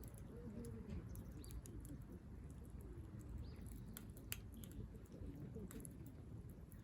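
Small wood fire crackling in a compact folding stove, with scattered sharp pops over a low steady rustle of the flames.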